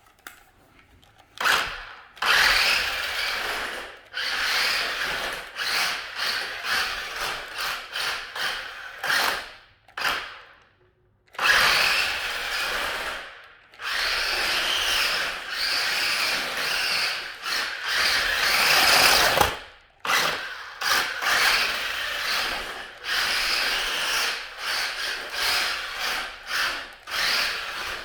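Tyco Rebound RC car's electric motors and gearboxes whirring in repeated bursts of a second or two as it is driven about, stopping and starting, with a few short pauses.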